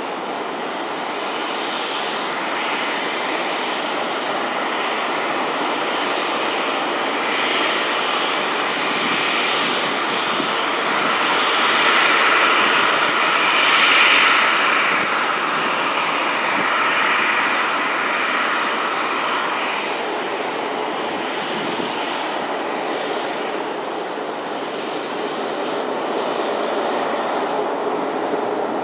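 Boeing 737-400's two CFM56-3 turbofan engines running at taxi power: a steady whine over a rushing hiss. It grows louder to a peak about halfway through, as the engine intakes face the microphone, then eases as the jet rolls past.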